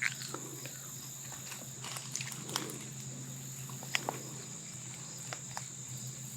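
Crickets chirring steadily in the background, with scattered small clicks and rustles from close-by handling.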